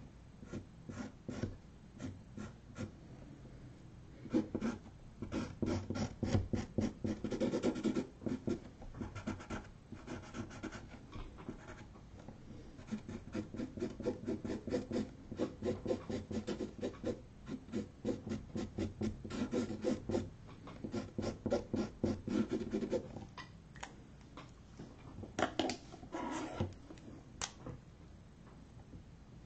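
Felt-tip black marker scratching across a canvas board in runs of quick, short strokes with brief pauses, as it inks feather lines. The strokes thin out to a few last ones near the end.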